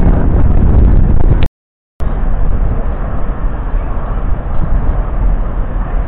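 Wind buffeting the camera's microphone: a loud, uneven rumble. It cuts out completely for about half a second near 1.5 s in, then resumes a little quieter.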